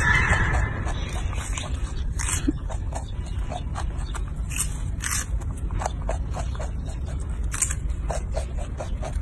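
A young macaque biting and chewing a raw cucumber: a scattered run of crisp crunches and clicks, a few of them louder, over a steady low rumble.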